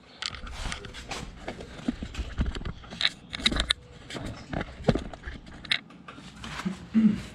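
Irregular rubbing, scraping and light knocks of a shop rag wiping the oil filler-cap dipstick of a Kawasaki Z125 Pro dry, with a brief low-pitched sound near the end.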